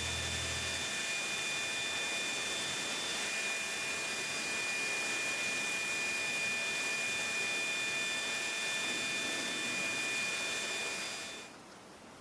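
Compressed air blowing through the air cleaner's primary filter element from the inside: a steady hiss with a high whistle, which stops about a second before the end.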